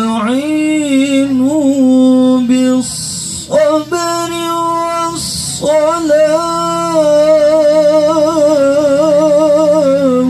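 A male qari reciting the Quran in the melodic tilawah style. He holds long notes and ornaments them with wavering turns. There are two short breaks for breath, about three and five and a half seconds in, and the phrase breaks off abruptly at the end.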